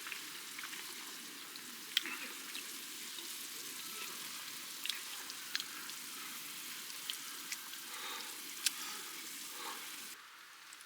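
A hot pot simmering and sizzling, a steady hiss with occasional sharp clicks. The hiss cuts off suddenly near the end.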